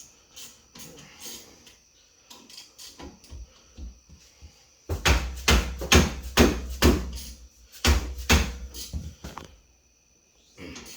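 Light clicks and rattles of hand tools on the car's brake and hub parts, then a run of loud metallic knocks, about two or three a second, for some four seconds starting about five seconds in.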